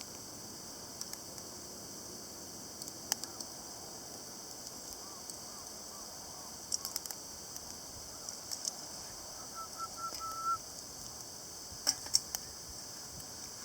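Wood campfire crackling, with sharp pops now and then, several in quick clusters.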